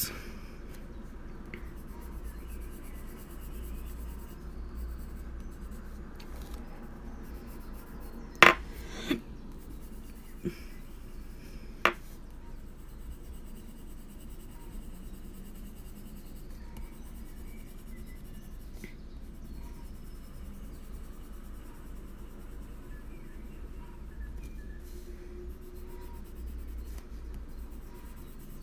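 A Faber-Castell Polychromos coloured pencil shading on paper at medium pressure, a soft steady scratching. A few sharp clicks come about 8 to 12 seconds in.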